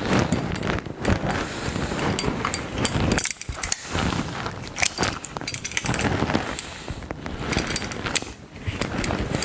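Needle-nose vise grips clinking and scraping against the metal drive bar of a mower's self-propel handle as it is pried at, a run of sharp metallic clicks with brief pauses about three and a half and eight and a half seconds in.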